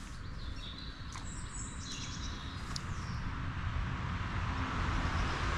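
Wind rumbling on the microphone, growing steadily louder, with a few faint bird chirps in the first half.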